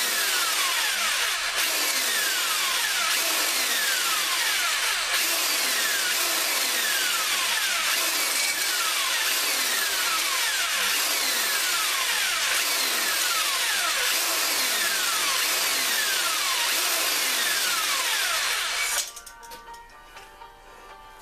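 Electric drill spinning a cylinder hone in a small-engine cylinder bore, breaking the glaze and cutting fresh crosshatch lines: a steady grinding scrape with a falling sweep about every second and a half as the hone strokes, stopping abruptly near the end.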